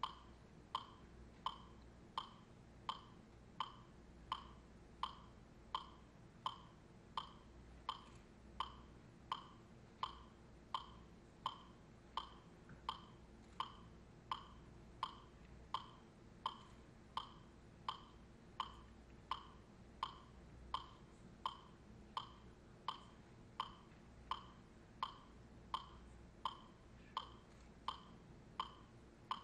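A metronome ticking a steady beat, about 85 clicks a minute, short and dry, over a faint hum.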